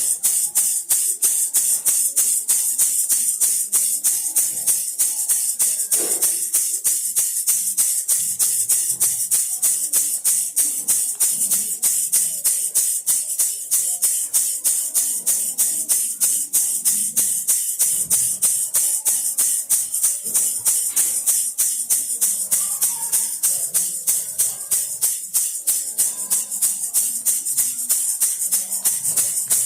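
Baby rattle shaken steadily in a fast, even rhythm, about four to five shakes a second, a bright, high rattle.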